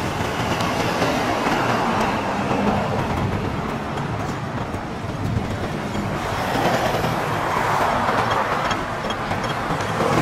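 Street traffic noise: a steady rush of road noise, swelling as vehicles pass about two seconds in and again around seven to eight seconds.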